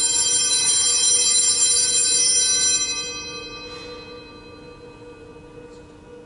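Altar bells rung at the consecration of the Mass, marking the elevation. A bright, many-toned jingle sounds loudly for about three seconds, then rings away.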